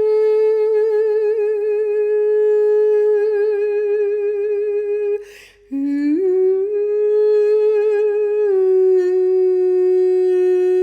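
A single voice hums long, sustained notes with a slow vibrato as sound-healing vocal toning. About halfway through it breaks off for a short breath, then slides up into the next note, and the pitch steps down a little near the end.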